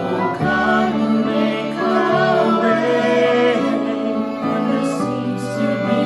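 A family singing a hymn together, accompanied by violins.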